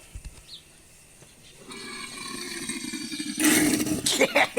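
Pool pump and filter plumbing: water rushes in with a rising whoosh that swells loud, then breaks into a regular gurgling about three pulses a second, like a burp, as air is pushed out of the system.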